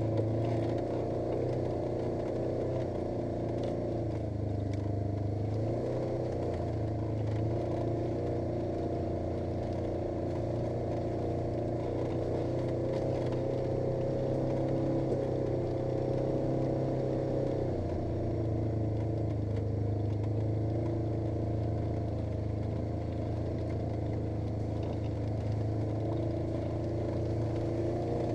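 Polaris RZR 900 S side-by-side's parallel-twin engine running steadily as it drives, its engine speed shifting a little around six seconds in and again around eighteen seconds in.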